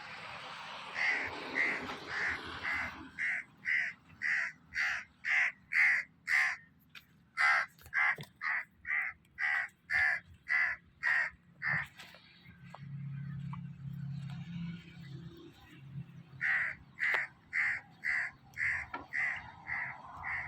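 Repeated short harsh calls from an animal, about two a second, in a long run that breaks off about twelve seconds in and starts again near the end, with a low hum in the gap.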